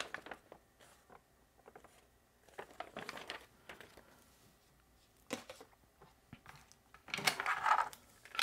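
Handling noises on a tabletop: a paper instruction leaflet rustling as it is put down, then a braided cord strap and cables being picked up. There are a few short rustling bursts, the loudest near the end.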